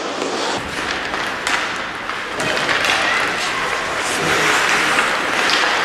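Ice hockey play on a rink: skates scraping the ice and sticks knocking on the puck, with spectators' voices and shouts. A few sharp knocks stand out.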